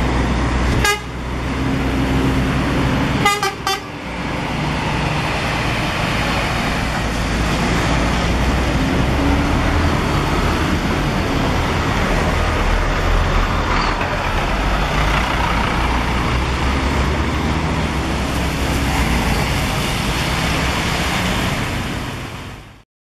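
Intercity coach's diesel engine running as the bus pulls out, with a short horn toot about a second in and two quick toots around three seconds in. The engine sound fades out near the end.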